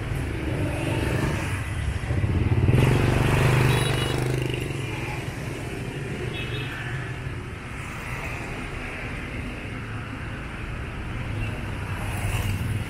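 Street traffic of motorbikes and scooters running past, with a steady engine hum. One passes close, swelling to the loudest point about three seconds in and fading by about five seconds.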